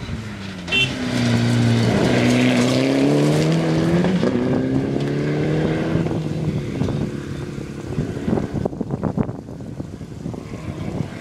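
Rally car engine passing at full throttle. The pitch drops about two seconds in, then climbs steadily as it pulls away. After that it fades, leaving wind noise and crackle on the microphone.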